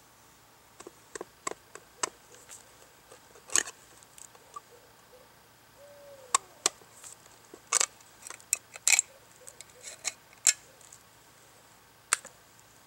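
Old-fashioned hand can opener cutting its way around the rim of a steel food can: irregular sharp clicks and short metal-on-metal scrapes, with a few louder cracks as the blade bites through the tin. It leaves a jagged cut edge.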